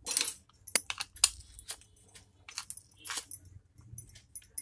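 Wooden spatula scraping and tapping a sticky sesame-and-sugar mass onto a plastic sheet on a board: a string of short, irregular scrapes and clicks.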